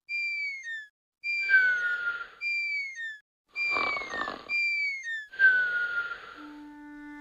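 Cartoon snoring sound effect for a sleeping dog. Raspy snores alternate with short falling whistles, about three times over.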